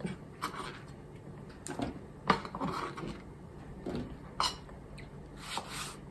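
Kitchen knife cutting eggplant on a plastic cutting board: irregular knocks of the blade on the board, with the cut pieces scraped off the board into a bowl.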